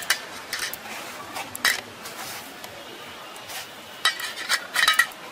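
Light metallic clinks and taps from hands working in stainless steel bowls while a fish chop is pressed into bread crumbs, a few scattered ones and then a quick cluster about four seconds in.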